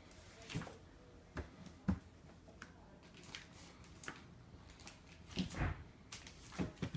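Scattered light knocks and thumps of wrapped cardboard gift boxes being pushed and shifted on a stack by a toddler's hands, the sharpest about two seconds in and a cluster about five and a half seconds in.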